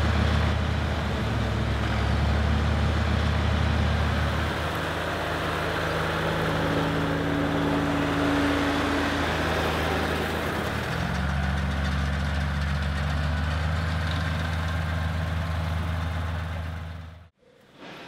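Tractor engine running steadily as it tows a grass sweeper collecting cut grass on a golf course. The low hum shifts slightly in pitch twice, a higher tone joins for a couple of seconds in the middle, and the sound cuts off suddenly near the end.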